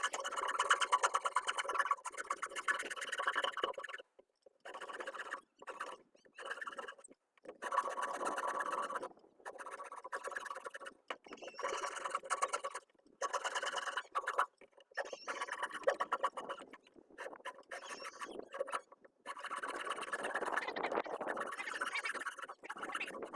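A hand wood rasp filing green wood in a series of scraping strokes, each one to a few seconds long, with short pauses between them.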